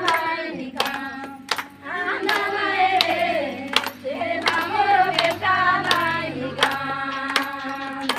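A group of women singing a devotional song together, with hand claps keeping a steady beat about every three-quarters of a second.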